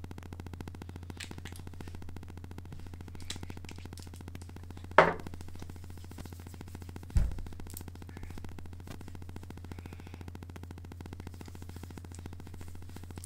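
Hands patting and pressing serum into the skin of the face: light taps, one sharp slap about five seconds in and a dull thump about two seconds later, over a steady low hum.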